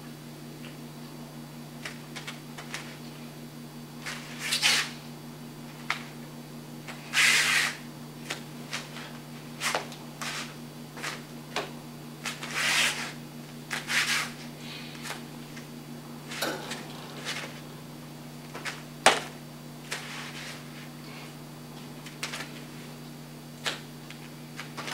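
Scattered soft swishes, scuffs and light clicks from a karate uniform and bare feet moving on foam mats as a kata is performed slowly, over a steady low hum.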